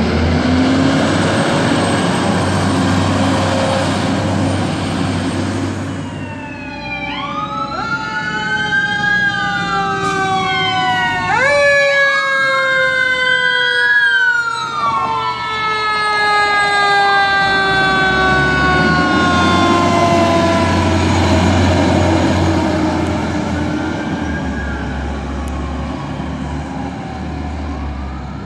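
Vehicle engine running for the first few seconds, then from about six seconds in, fire truck sirens: several overlapping siren tones that climb quickly and then slowly wind down, with a siren wail rising and falling, over truck engine noise.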